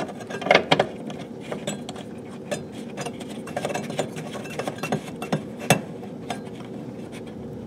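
Scattered light clicks and taps of hands handling the plastic and metal fittings under a dishwasher, over a faint steady hum.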